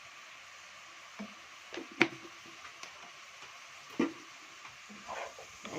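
Chopped vegetables sizzling softly in a pot as they sauté, with a spoon knocking sharply against the pot twice, about two seconds apart.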